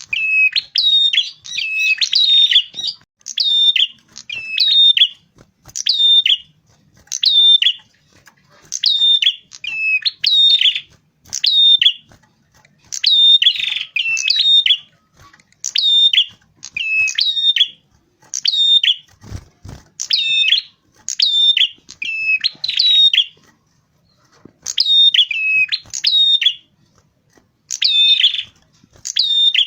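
Prenjak kepala merah, a small Indonesian warbler-type songbird, singing loud, quick, sharply inflected high chirps in short bursts repeated every second or so. There is one brief low thump about two thirds of the way through.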